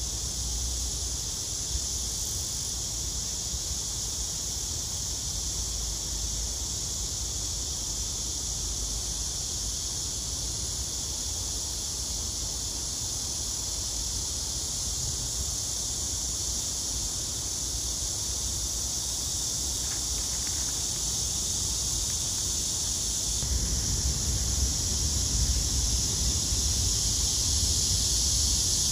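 A steady high hiss over a low rumble, getting louder about twenty-three seconds in.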